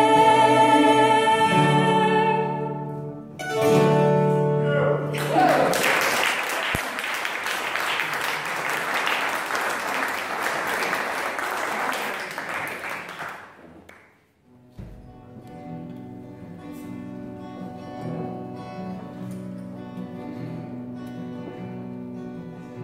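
A woman's voice holds the last sung notes of a folk song over acoustic guitar, then the audience applauds for about eight seconds. After a short gap, quieter acoustic guitar and a second plucked string instrument start the next song.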